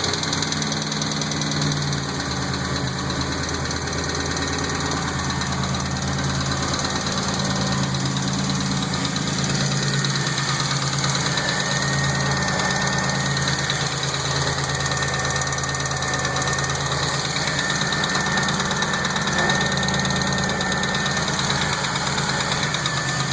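Rebuilt GM 3100 V6 engine running steadily at idle. A thin, faint whistle runs for about ten seconds partway through.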